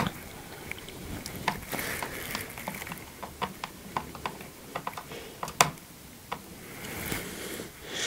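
Plastic bottom cover of an Asus ROG Strix G15 laptop being pressed down, with a series of small irregular clicks and snaps as its clips seat, the loudest about five and a half seconds in. The clicks are the sign that the panel is locking into place.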